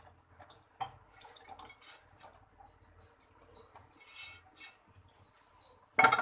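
A spoon or spatula scraping and tapping in a pan as the thick patisa mixture is spread and pressed level, with one loud knock near the end.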